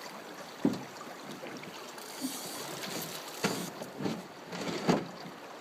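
Steady rush of river water, with three sharp knocks: one near the start and two in the second half.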